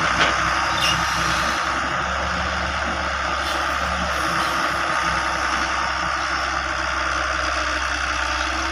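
Heavy vehicle running steadily, a low engine hum under a broad hiss of engine and road noise, with a few short clicks in the first second.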